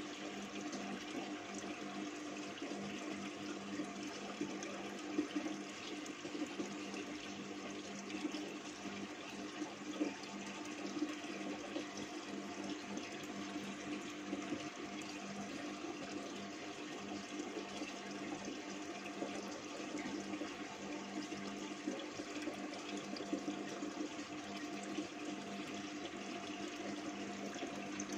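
Aquarium filter running: a steady rush of moving water over a steady low hum.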